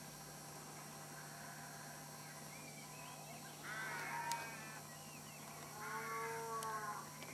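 Two short bursts of bird calls, about four seconds in and again about six seconds in, each lasting under a second.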